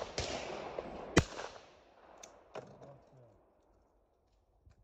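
Over-and-under shotgun firing at a clay target: one sharp, loud report about a second in, fading out over the next second. A few light clicks follow, as of the action being opened.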